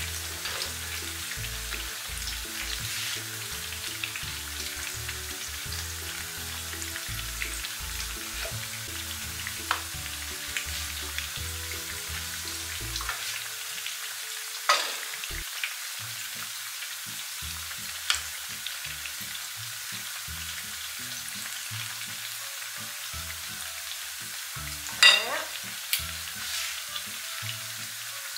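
Hot oil sizzling steadily as batter-coated bananas deep-fry in a pan, with thin batter drizzled into the oil to make crispy curly fritters. A few sharp clicks come through the sizzle, the loudest about 15 and 25 seconds in.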